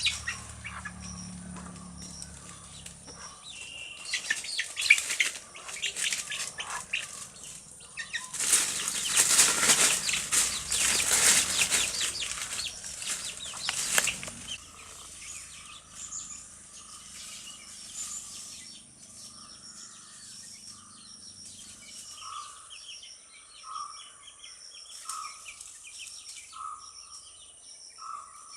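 Chickens: a flurry of wing flapping and rustling lasting several seconds about a third of the way in, followed by a mother hen clucking softly and evenly, about one cluck every second and a half.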